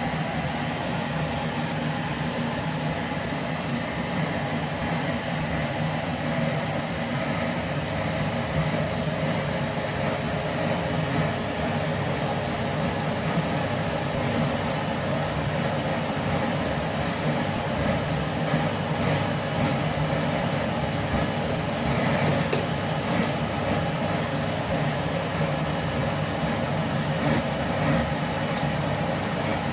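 Vacuum cleaner running steadily under heavy suction: a constant rushing hum with a thin high whine on top and one faint click about two-thirds of the way through.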